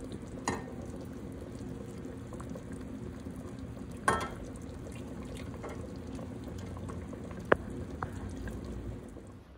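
Pot of mutton nihari simmering steadily while oil is skimmed off the top with a spoon, with a few sharp clinks of the spoon against the pot, the loudest about four seconds in.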